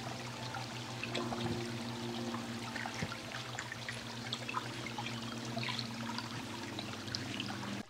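Small forest stream trickling and gurgling over stones, with a faint steady low hum underneath.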